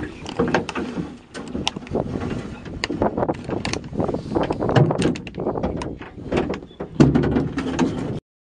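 Gill net and its float line being hauled by hand into a boat: irregular knocks, clatter and rustling as net and float strike and drag over the boat's metal side, over a low rumble. The sound cuts off suddenly near the end.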